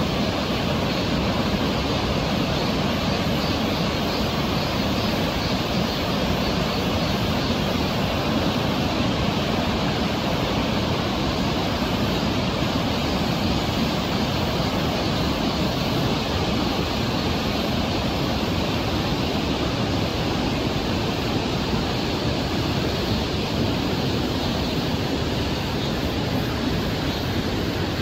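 Flood-swollen river rapids, a steady, loud rush of whitewater crashing through a narrow rock gorge.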